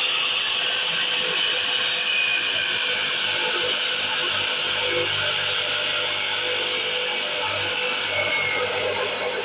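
Abrasive cut-off saw grinding through the crimped steel end fitting of a hydraulic hose. It makes a steady, loud grinding hiss, with a high whine that drops slowly in pitch as the cut goes on.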